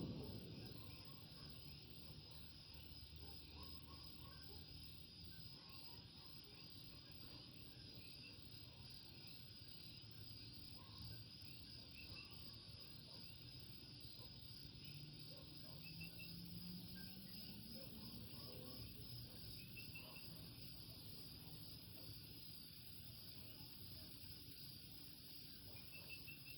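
Faint night chorus of coquí frogs, with short scattered chirps over a steady, high insect trill. About midway a low hum slowly rises in pitch and fades.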